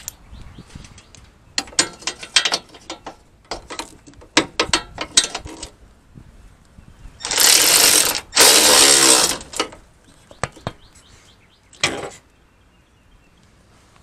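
Cordless electric ratchet with an extension and socket running in two bursts of about a second each around the middle, driving a bolt, and once more briefly near the end. Before that, scattered sharp clicks and knocks.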